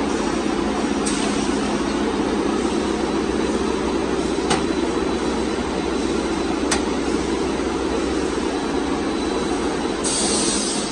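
Fibre cement corrugated sheet production machinery running with a steady mechanical noise. Two sharp clicks come in the middle, and a short hiss comes near the end.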